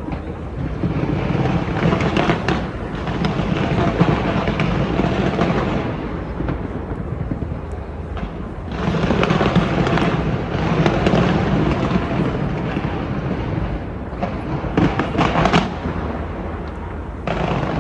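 New Year fireworks display, bursting and crackling without pause in loud waves, with a cluster of sharp bangs about fifteen seconds in.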